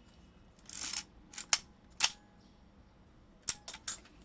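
AGFA camera's between-the-lens leaf shutter being cocked and fired, a handful of sharp mechanical clicks with a short rasp about a second in and a quick cluster of clicks near the end. The shutter is now closing properly after repair.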